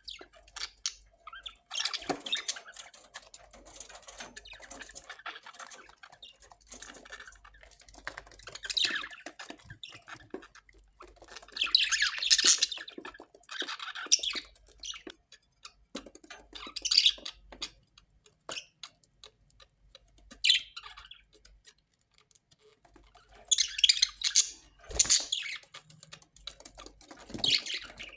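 Parrots squawking in harsh bursts, with quieter chattering and clicks in between; the loudest calls come about twelve seconds in and again near the end.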